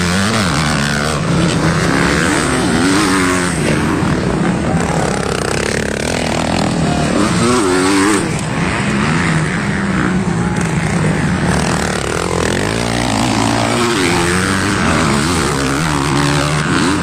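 Engines of several MX1-class motocross bikes racing on a dirt track, revving up and down through the corners, their pitches rising and falling and overlapping as bikes pass.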